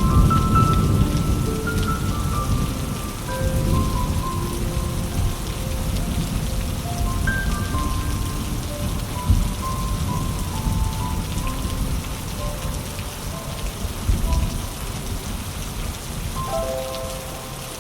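Steady rain falling, with a low rumble of thunder dying away in the first few seconds. Soft held musical notes at changing pitches sound over the rain.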